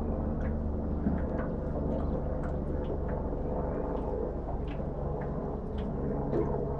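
Steady low hum of a small boat's motor, with faint scattered ticks.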